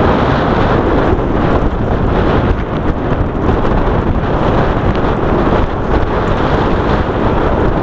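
Heavy wind rushing over a sunglasses-mounted camera's microphone during a fast descent of a dirt trail, a steady loud roar, with faint scattered ticks from the ride over loose gravel.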